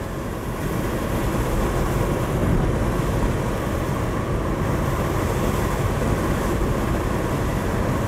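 Steady road noise of a car driving along a tarred road, heard from inside the cabin: an even rumble of tyres and engine.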